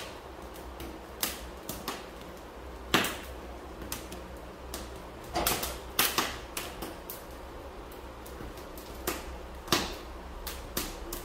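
Corn cobs roasting directly over gas burner flames, the kernels crackling and popping in sharp, irregular clicks over a low steady background.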